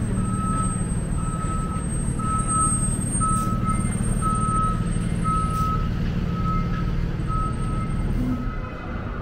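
A backup warning alarm beeping steadily, about one beep a second, over a low steady machine hum.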